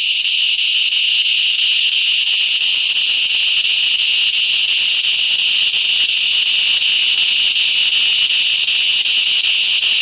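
Gorenoise (harsh noise) track: a loud, steady, high-pitched hissing drone that stays unchanged, shrill like an alarm.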